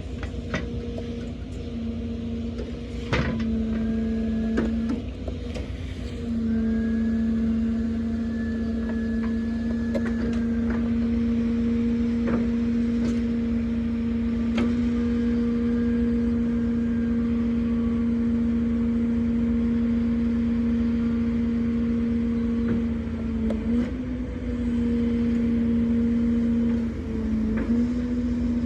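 Truck engine running with the loader crane's hydraulics engaged, a steady droning hum whose pitch dips briefly twice near the end. A few short knocks sound in the first half.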